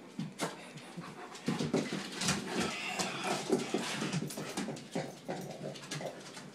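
Dogs, a Shiba Inu and a large Ovcharka shepherd dog, play-fighting, with dog vocal noises and scuffling. A few sharp knocks come early, and the sound is busiest and loudest from about a second and a half in until about five seconds.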